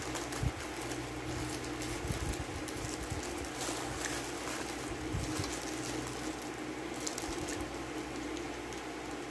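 Thin plastic food wrap crinkling and rustling as it is peeled off a slice of pizza, in many small crackles, over a steady low hum.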